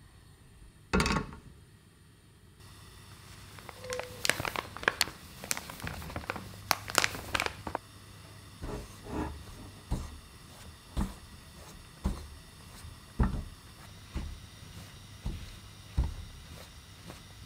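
A pan set down on a portable gas stove with a thud about a second in, then dry corn starch tipped into the pan with a run of rustles and taps. From about eight seconds in, a spatula is stirred through the corn starch in the pan with a soft stroke about once a second, over a low steady hum.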